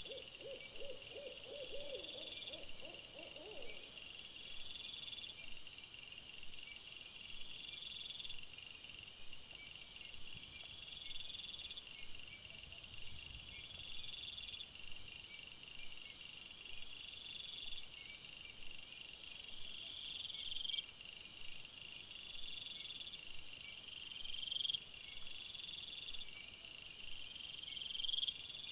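Night-time animal calls: a low, wavering hoot lasting about three or four seconds at the start, over short high chirps that repeat about every two seconds throughout.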